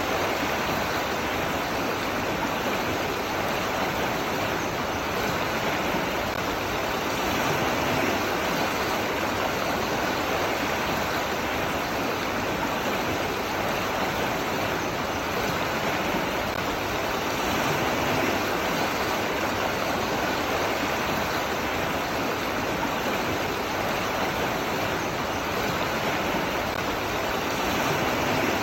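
Running water rushing steadily, with slight swells in loudness about every ten seconds.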